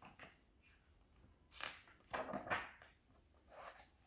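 Paper rustling as a picture book's page is turned: a short swish about a second and a half in, a louder crinkle just after two seconds, and a softer rustle near the end.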